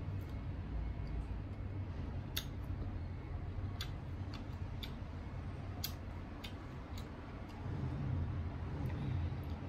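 A person chewing crisp, unripe green mango, with a few sharp, scattered clicks and crunches, about six in all, over a steady low rumble.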